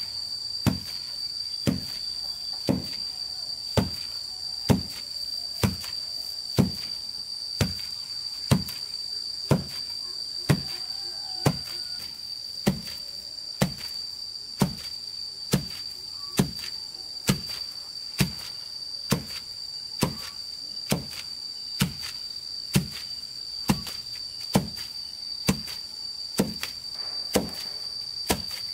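Steady, even blows of a hand tool, about one a second, each a dull thunk, over a constant high-pitched drone of insects.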